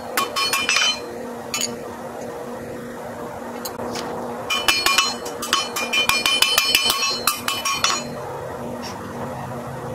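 Hand hammer striking a hot iron bar on a steel anvil, with bright ringing clinks, sped up to double speed so the blows come very fast. A quick run of strikes at the start, a pause with a stray blow or two, then a longer rapid run from about halfway that stops near the end.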